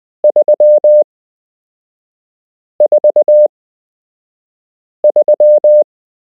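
Morse code sent as a steady pure tone of about 600 Hz: three characters about two and a half seconds apart, each a quick run of dots ending in one or two dashes, the pattern of Morse numerals being sent for copying practice.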